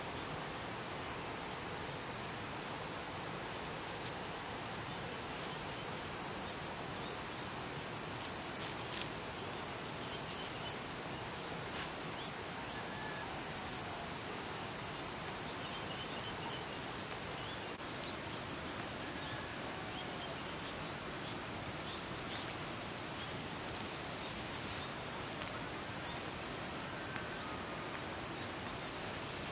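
Insect chorus, crickets, making a steady high-pitched continuous trill. It dips slightly in level about two-thirds of the way through.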